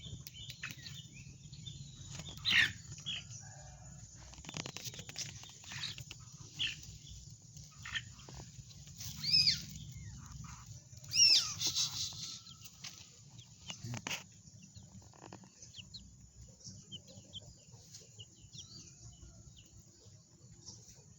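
A sooty-headed bulbul and a chicken: short outbursts of sharp, high bird calls and squawks, loudest a couple of seconds in, around nine seconds and around eleven seconds, with fainter calls between.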